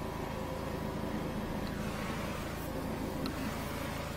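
Engine of a high-pressure sewer jetting rig running steadily, an even, unchanging hum.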